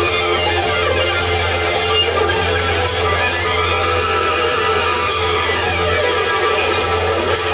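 A live rock band playing amplified music, with electric guitars to the fore, at a steady level throughout.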